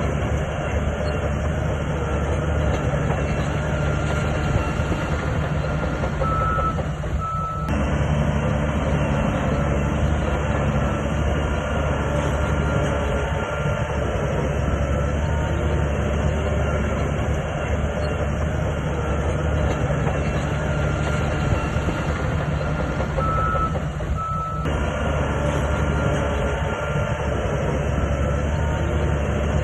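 SHANTUI bulldozer's diesel engine running steadily under load, a continuous deep drone. Two short high beeps sound about six seconds in and again about seventeen seconds later.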